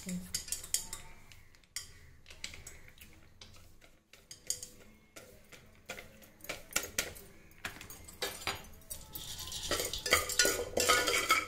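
Dry popcorn kernels poured into an aluminium pressure cooker, ticking and rattling on the metal bottom, then a steel ladle stirring the kernels in the oil, clinking and scraping against the pot. The stirring is denser and louder near the end.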